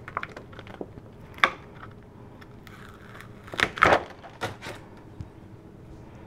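Handling sounds of clear stamps: light plastic clicks and taps as a clear photopolymer stamp is taken from its plastic sheet and set down in a clear stamping platform, with a few sharper knocks about a second and a half in and around four seconds in.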